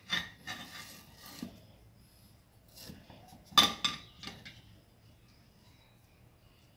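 Handling sounds of a wooden hatchet handle and paracord: a few sharp knocks and clicks as the wood is bumped and set against hard surfaces, the loudest about three and a half seconds in, with light rubbing of the cord between them.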